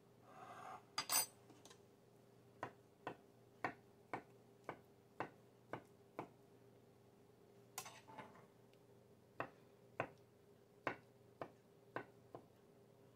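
Kitchen knife slicing an avocado half against a wooden end-grain cutting board: sharp taps about two a second in two runs, one cut per tap. A louder clatter about a second in.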